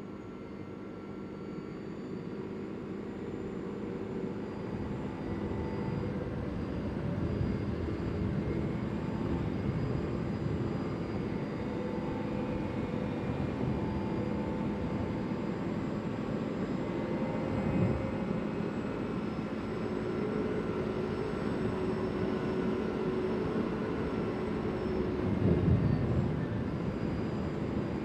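CFMoto CForce 800 ATV's V-twin engine running while riding along, growing louder over the first several seconds, with its note rising and falling gently and louder swells about two-thirds in and near the end.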